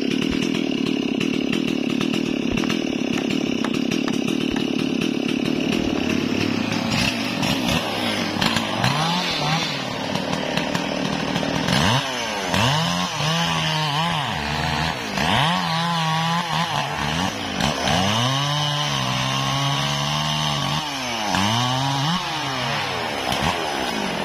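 Stihl MS440 two-stroke chainsaw running steadily at high revs for about the first six seconds, as when cutting through a log, then dropping back and being revved up and down over and over, the engine note rising and falling with each throttle blip.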